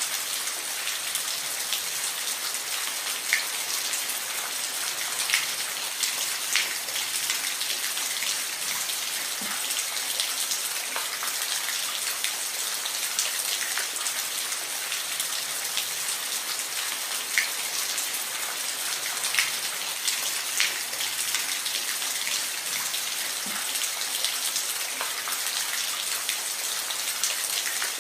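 Steady rain falling, an even hiss with many individual drops ticking sharply on a hard surface close by.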